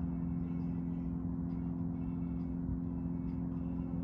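Small electric fresh-water pump running with a steady hum, pushing hot water round the recirculation loop back to the fresh water tank.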